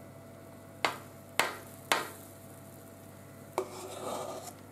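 Three sharp clacks about half a second apart as a utensil knocks pancake batter onto an electric griddle, followed near the end by a short soft scraping.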